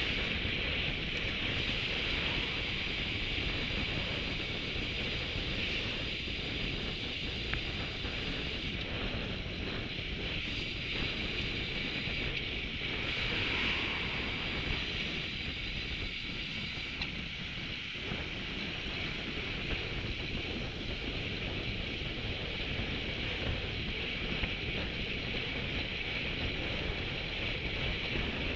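Wind rushing over the microphone of a camera on a road bike riding at about 40 km/h: a steady low rumble with an even hiss above it.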